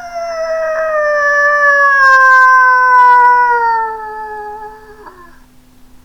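A person imitating a coyote's howl with the voice: one long howl held and slowly sliding down in pitch, trailing off about five seconds in.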